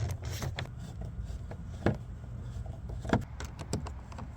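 A few sharp clicks and taps of small hardware being handled on a car door, over a low steady hum.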